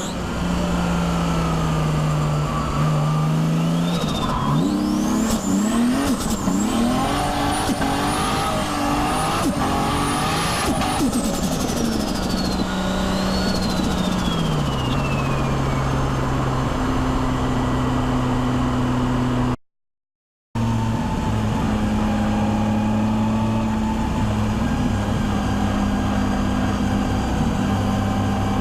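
Nissan Skyline R33's turbocharged RB25DET straight-six, fitted with a screamer pipe and no blow-off valve, pulling under boost. A rising turbo whistle climbs over the engine note for several seconds, then falls away. The engine settles to a steady run, with a brief cut to silence about two-thirds of the way through.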